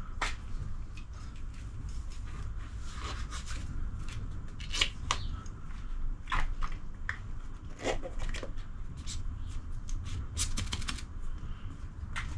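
Irregular scrapes, rubs and light clicks from hands cleaning and handling a coilover damper's shaft and its parts.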